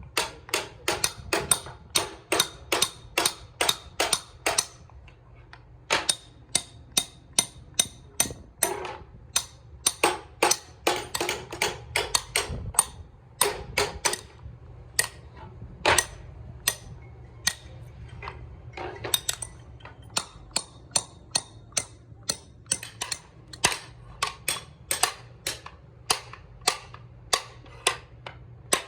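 A hammer tapping on wood in quick runs of sharp knocks, about three a second, with short pauses between runs.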